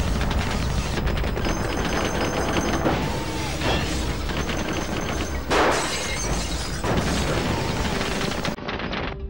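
Automatic rifle fire in a film shootout: a rapid, continuous stream of shots mixed with shattering glass and bullet impacts. A louder blast comes about five and a half seconds in.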